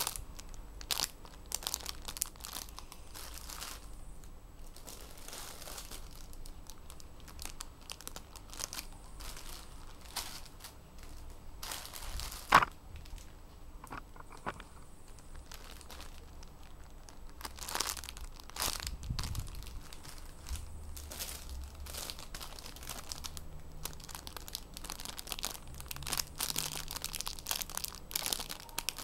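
Clear plastic packaging bags crinkling on and off as bagged squishy toys are handled and moved around a pile, with one sharp click about halfway through.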